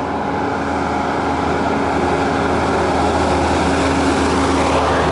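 Steady rush of wind and road noise while cycling along a road, with an oncoming lorry's engine drone growing slowly louder.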